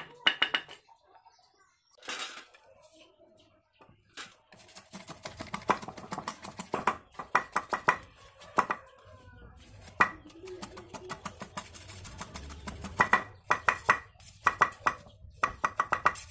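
Large knife blade whittling a thin wooden stick against a wooden plank: quick runs of short, sharp scraping and chopping strokes, with a lull of a few seconds near the start and tight rapid bursts toward the end.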